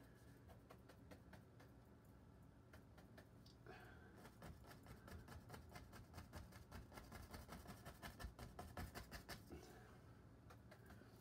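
Faint quick strokes of a chip brush dabbing oil paint onto stretched canvas, several a second, starting about four seconds in and stopping near the end, over a low steady hum.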